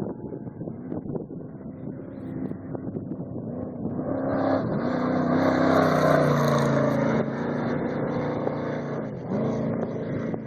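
Off-road race vehicle's engine approaching and passing at speed, loudest about six seconds in, its pitch rising and falling as the driver works the throttle.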